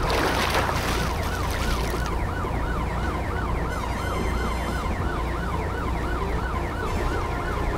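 Police boat siren in a fast yelp, its pitch sweeping up and down about three times a second, over a steady low hum, with a loud rush of noise during the first two seconds.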